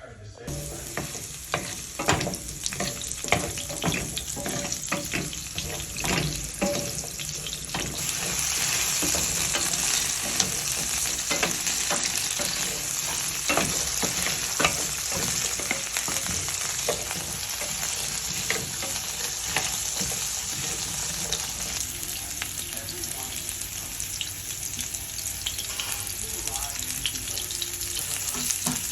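Food sizzling in a hot pan, with frequent knocks of a utensil stirring it. The sizzle gets louder about eight seconds in and then holds steady.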